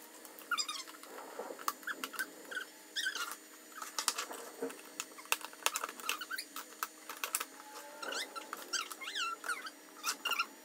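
Collapsible plastic storage box being unfolded and its panels and clips pressed into place: many sharp plastic clicks and snaps, mixed with short, high squeaks that bend up and down in pitch.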